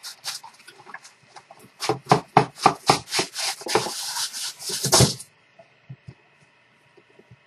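Loose styrofoam packing rustling and crackling as it is dumped from one box into another, a dense run of scrapes and crackles that stops suddenly about five seconds in.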